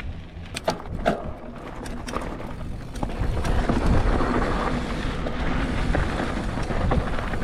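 Mountain bike riding over a rough, washed-out sandy and rocky trail: tyre noise with knocks and rattles from the bike, and a rushing noise on the camera microphone that grows louder about three seconds in as the ride goes on.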